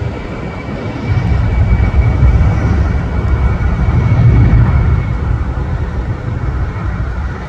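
Airbus A320-family jet's engines at takeoff power during its takeoff roll: a steady rumble that swells about a second in and is loudest around four seconds, with a thin high whine that fades in the second half.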